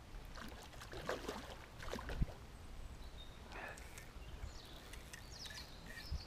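Quiet waterside ambience: a low steady rumble with scattered faint rustles and small clicks, one sharper click about two seconds in, as a hooked trout is played on a fly rod.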